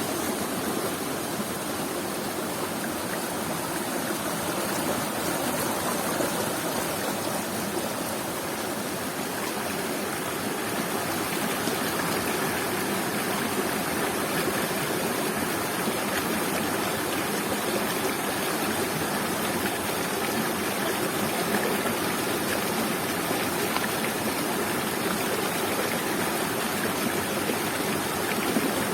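Waterfall and its stream of water pouring and splashing in a steady rush.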